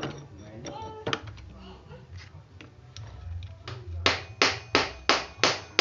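Clicks and rattles of metal engine parts being handled, then, about four seconds in, a run of sharp metal taps, about three a second, on the kick-starter parts of a motorbike engine.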